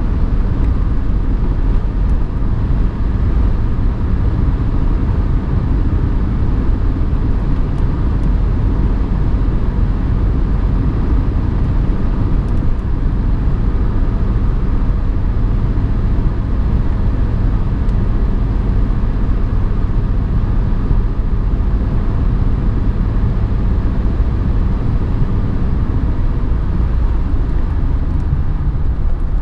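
Mercedes 190D's 2.5-litre five-cylinder OM602 turbodiesel running steadily at cruising speed, heard from inside the cabin with tyre and road noise underneath.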